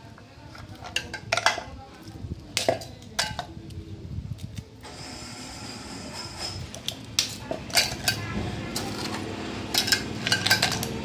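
Scattered clinks and knocks on a stainless steel mixer-grinder jar as curd is squeezed into it from a plastic packet and pieces are dropped in, with a steady background hiss from about five seconds in.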